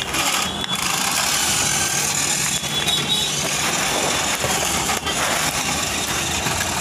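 Toy remote-control farm tractor driving across a hard floor, giving a steady mechanical running noise.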